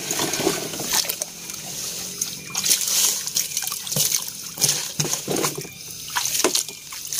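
Muddy water sloshing and splashing in repeated surges as a plastic toy dump truck is pushed back and forth through it, washing sand out of its bed.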